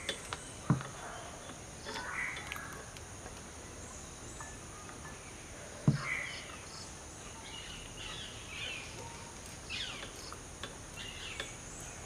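Quiet bench soldering with two light knocks, about a second in and again near the middle, over a steady high-pitched hiss and faint scattered chirping.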